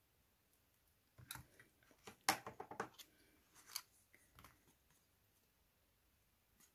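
A small piece of sticky tape being cut: a cluster of short, quick, crackly snips about one to three seconds in, followed by a couple of fainter ones.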